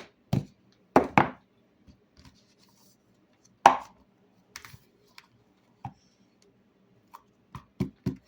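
Slime being squished and poked by hand, making a string of short wet pops and clicks at irregular intervals, the loudest about a second in and just before the middle.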